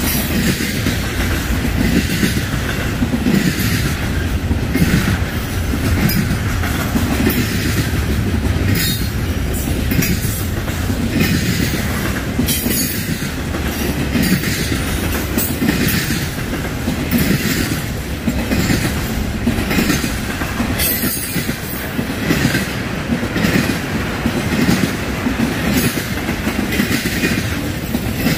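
Freight train cars rolling past loud and steady, a low rumble with a running string of clacks as the steel wheels cross rail joints, and now and then a faint wheel squeal.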